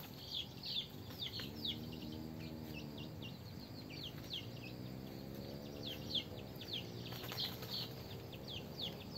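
Chicks peeping: many short, high, falling peeps, several a second. A faint low hum swells in the background and rises and falls in pitch.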